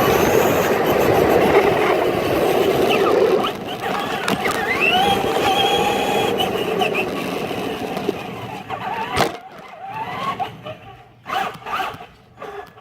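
RC truck driving, its motor whining up and down in pitch over a loud rumble of wheels on the ground. The rumble drops after about three seconds, the run fades out, and a few sharp knocks come near the end.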